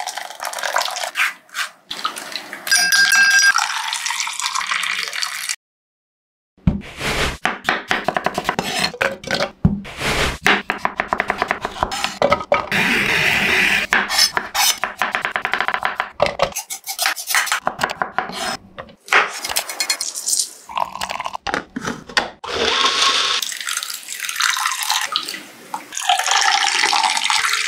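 Kitchen sounds of juice-making: thick blended fruit pulp poured into a metal mesh strainer, with a few ringing metallic clinks, then after a brief silence a knife chopping carrot on a wooden cutting board in rapid, dense taps, and near the end juice pouring into a glass.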